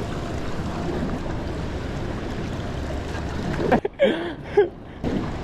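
Steady wind and water noise on an open fishing boat at sea. Nearly four seconds in, the noise cuts out abruptly for about a second, and a brief voice-like sound is heard before it returns.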